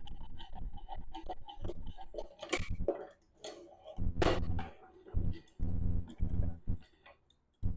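Light metallic ticking and clicking, then several short rattling bursts, as a nut is run along the clamp's threaded rod, checking the threads for burrs.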